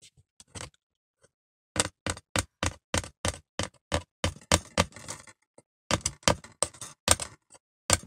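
Hammer tapping rapidly, about four blows a second, with a brief break a little past the middle.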